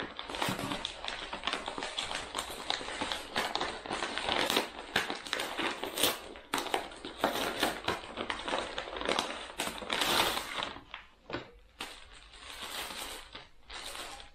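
Brown paper mailer bag being torn open and crumpled by hand, a dense crackling and crinkling that eases about eleven seconds in to lighter, sparser rustling.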